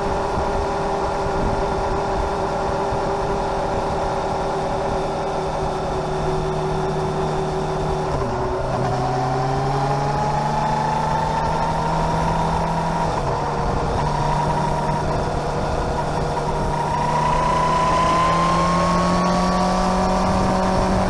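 Three-wheeler's engine running steadily, its speed changing a few times: a dip and slow rise in pitch about halfway through, then a further rise and a little louder near the end.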